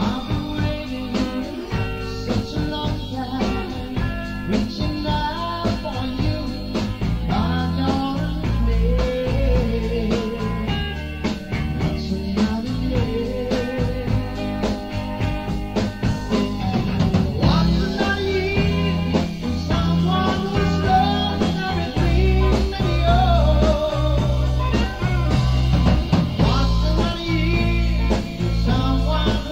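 Rock band recording: a sung lead vocal over a backing of drums, bass and guitar, with the backing growing fuller about two thirds of the way in.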